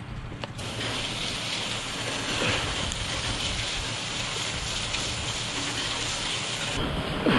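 Pressure washer spraying water against a surface: a hissing spray that starts about half a second in, over the steady hum of the machine's engine.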